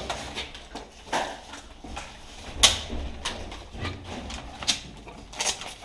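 A string of irregular sharp clicks and knocks, about one every half-second to second, the loudest a little under three seconds in, over a low background rumble.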